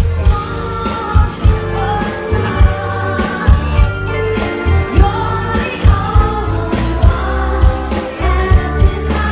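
Live pop band with a woman singing lead over bass guitar, keyboards and drums, with a steady drum beat about twice a second. Heard from within the crowd, with heavy bass.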